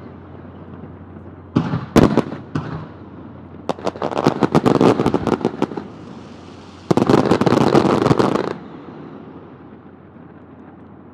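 Aerial fireworks going off: a few sharp bangs about two seconds in, a run of rapid crackling bursts from about four to six seconds, then a loud dense stretch of crackling bangs that stops suddenly near eight and a half seconds.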